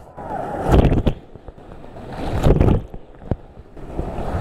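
River whitewater churning in a hole as a raft surfs it, with two loud surges of crashing water about a second in and about two and a half seconds in. Water and wind buffet the microphone on a life jacket inside the raft.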